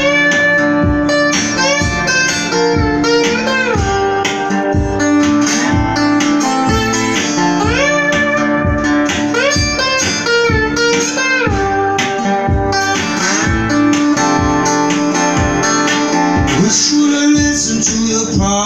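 Lap slide guitar playing a bluesy instrumental: plucked notes that glide up and down in pitch under the slide, over a steady low beat about twice a second.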